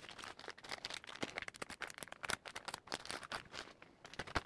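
Clear plastic packaging bags crinkling and crackling as they are handled and opened by hand, a dense run of small crackles.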